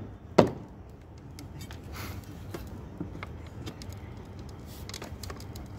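A long bar strikes hard into the packed soil of a pipe trench about half a second in, a single sharp chopping knock. After it comes a low steady hum with a few faint knocks.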